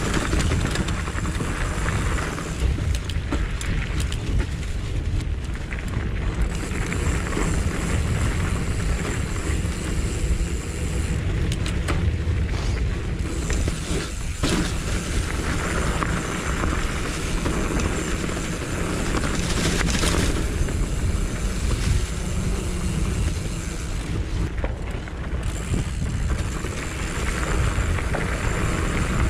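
Mountain bike riding a dirt trail, heard through an action camera: wind rumbling over the microphone, with tyre noise and scattered clicks and rattles from the bike.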